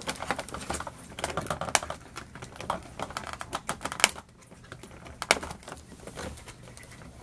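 Clear plastic blister packaging clicking and crackling under the fingers while twist ties holding action figures are picked at and untwisted: quick irregular light clicks, with a few sharper snaps.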